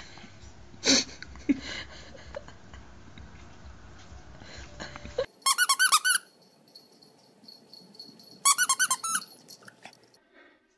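A squeaky plush toy squeaked in two quick runs, each of about eight rapid squeaks, a few seconds apart. Before them there is a short sharp noise about a second in over a low hiss.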